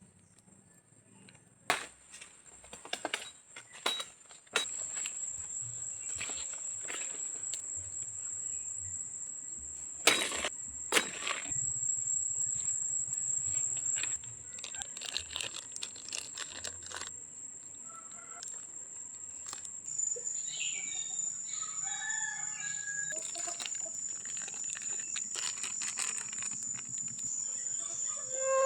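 A rooster crowing several times in the second half, over a steady high-pitched whine, with scattered sharp knocks and taps in the first half.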